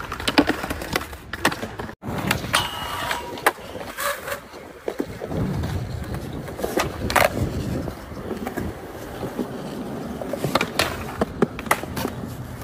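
Skateboard wheels rolling on smooth concrete, broken by repeated sharp clacks of the tail popping and the board landing during flatground flip tricks.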